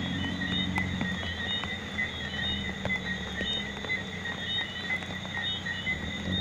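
Rain falling at night, with scattered drops ticking, over a steady chorus of rapidly repeated high chirping calls and a low pulsing drone.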